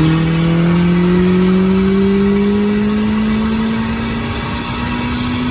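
Ford Focus ST's turbocharged 2.0-litre four-cylinder, built and fitted with a Precision 6266 turbo and a hood-dump exhaust, accelerating in one gear, heard from inside the cabin. The engine note climbs slowly and steadily.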